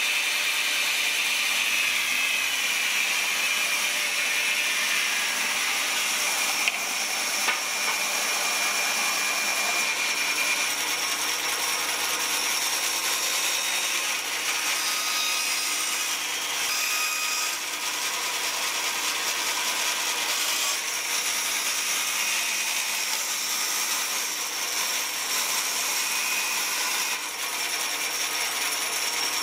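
Bandsaw running steadily as its blade rips a board of wood along the fence, a continuous hiss of cutting with the motor hum underneath. A couple of light knocks come about seven seconds in.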